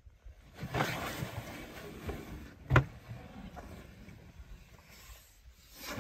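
African elephant digging and kicking at wet mud in a wallow with her foot and trunk, making wet sloshing and slapping noises, with one loud wet thud a little before the middle.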